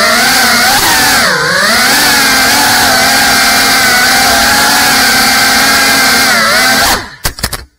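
GEPRC CineLog 35 FPV cinewhoop's motors and ducted propellers whining at high speed, the pitch dipping as the throttle is eased and rising again. The whine cuts off suddenly about seven seconds in, followed by a few quick knocks.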